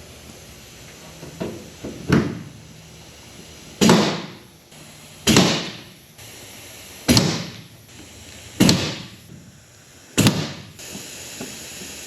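A pop rivet gun setting rivets in a race car's sheet-metal body panels, about seven sharp snaps at roughly one every second and a half, each trailing off over about half a second.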